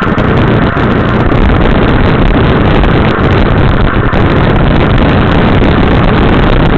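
Motorcycle under way at road speed: engine and heavy wind rush on the microphone blend into a loud, steady noise.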